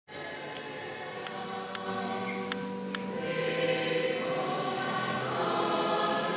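Church choir singing long held chords, growing gradually louder, with a few faint clicks in the first three seconds.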